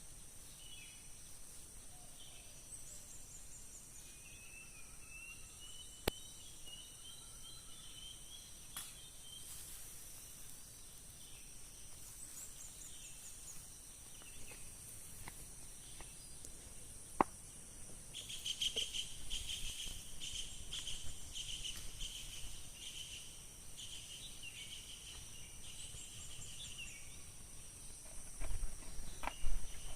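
Forest ambience: insects keep up a steady high-pitched drone while birds call with warbling phrases, busiest in the second half. Two sharp clicks ring out, one about a third of the way in and one past the middle, and a few louder knocks come near the end.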